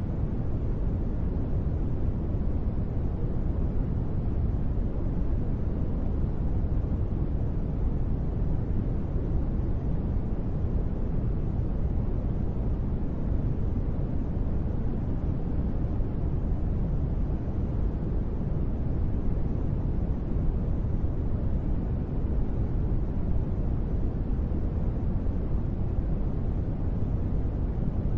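Steady, deep sleep noise, even and unchanging, with most of its weight in a low rumble and little hiss above it; no separate drops or other sounds stand out.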